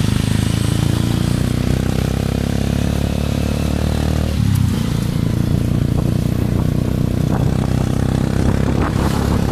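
Motorcycle engine running steadily while riding along a street, heard up close from the bike. The engine note shifts briefly about four and a half seconds in, then carries on.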